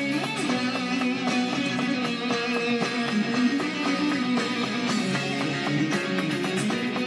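Guitar playing a continuous passage of many quick notes over held lower notes.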